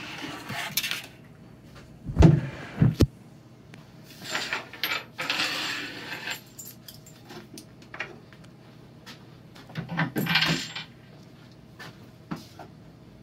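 MDF boards and clear acrylic pieces being lifted off a table saw top and set down: two sharp knocks about two seconds in, sliding and scraping a couple of seconds later, and more knocks and clatter about ten seconds in.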